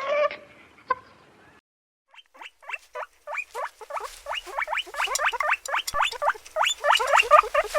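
Animal calls: a few short calls, a brief pause, then a fast run of short squeals sliding down in pitch, about five or six a second, building up denser and louder.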